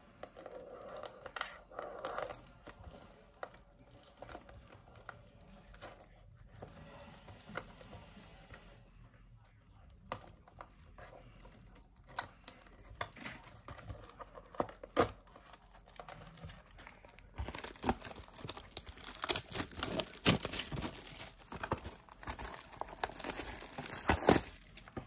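Plastic wrapping on trading-card booster boxes being torn and crinkled, with scattered sharp clicks and taps of cardboard. The crinkling gets much louder and denser about two-thirds of the way in.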